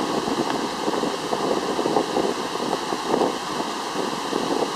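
Flood-swollen river rushing and churning over rapids just above a waterfall: a steady, dense rush of water.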